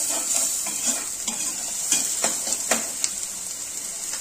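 Chopped onions sizzling steadily as they fry in ghee and butter, stirred with a spatula that scrapes and clicks against the pan several times.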